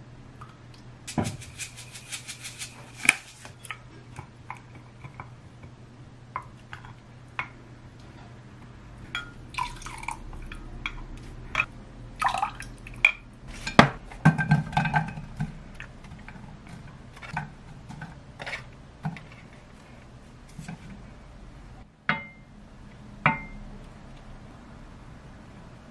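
A wooden spoon stirring and clinking in a glass mug of thick chili seasoning sauce: a quick run of clicks about a second in, then scattered clinks and scrapes. Near the end, a couple of soft knocks as tofu pieces are set into a frying pan.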